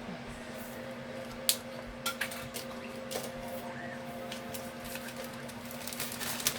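A few light clicks and taps from small handling over a steady low electrical hum.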